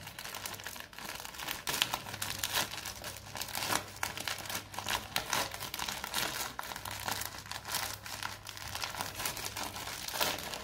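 Plastic courier mailer bag being crinkled, pulled and torn open by hand: a dense, irregular run of crackling rustles.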